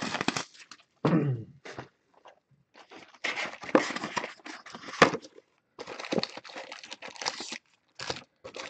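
Packaging on a box of baseball cards being torn open and crinkled: irregular bursts of ripping and crackling, with one sharp snap about five seconds in.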